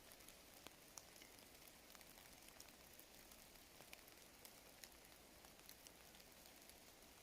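Faint light rain: a steady hiss with single raindrops ticking at irregular moments.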